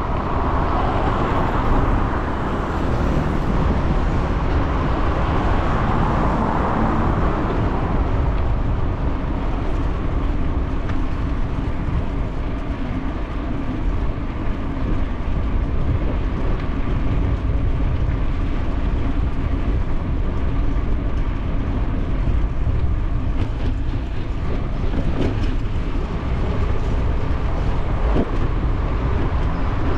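Wind rumbling over a bicycle-mounted camera's microphone, with tyre and road noise from riding over city paving and a bike lane. The noise is a little louder in the first several seconds.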